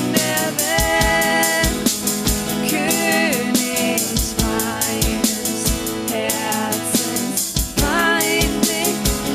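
Upbeat worship-band music: a drum kit keeps a steady beat with kick drum and cymbals under a gliding melody line and sustained chords.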